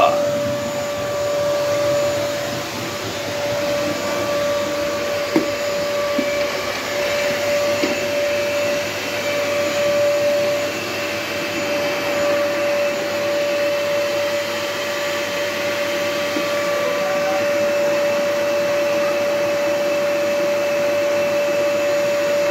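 Vacuum cleaner running steadily with a constant whine over the rush of air, with a couple of brief knocks partway through.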